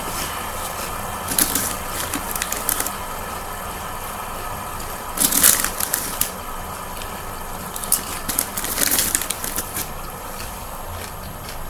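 Crackling, rustling handling noise in three bursts of sharp clicks, the loudest about halfway through, over a steady background hiss.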